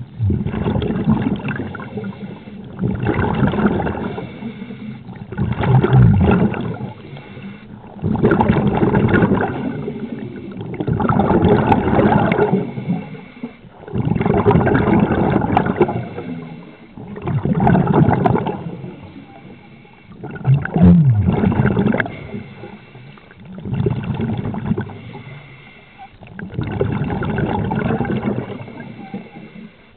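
Scuba diver breathing through a regulator underwater, bubbles gurgling out in regular bursts about every two to three seconds.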